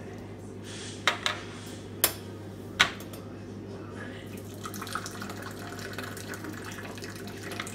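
Four sharp clinks, then from about four seconds in, tea poured in a thin splashing stream from a silver Moroccan teapot held high into small glass tea cups.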